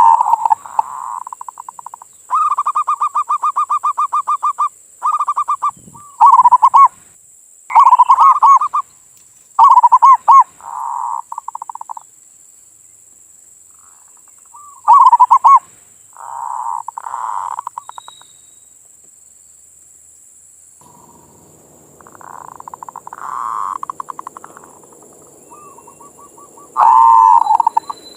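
Zebra doves (perkutut) cooing: a series of short, rapidly pulsed rolling coo phrases, each a second or two long with pauses between them. Loud phrases alternate with softer ones. This is the manggung song used to provoke other perkutut into cooing.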